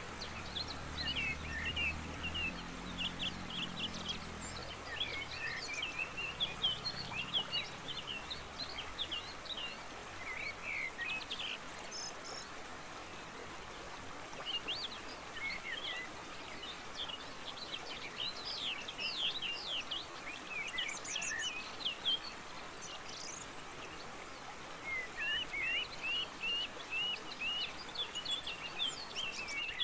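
Steady rush of a forest waterfall with songbirds chirping and whistling over it, in clusters of quick notes with quieter gaps. A faint low hum fades out over the first several seconds.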